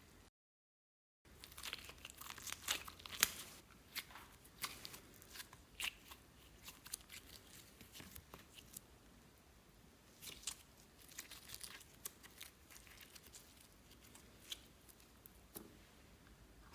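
Slime being squeezed and stretched by hand, giving many small irregular crackling clicks and pops, thickest early on and then thinning out. Near the start there is about a second of dead silence.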